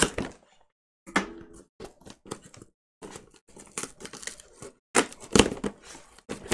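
Corrugated cardboard shipping box being torn open by hand along its pull-tab strip: irregular short bursts of ripping and scraping cardboard, with one louder, sharp rip about five seconds in.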